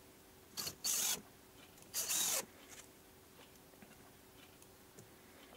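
Cordless impact driver running in three brief spurts, driving screws into a chipboard bench top, all within the first two and a half seconds.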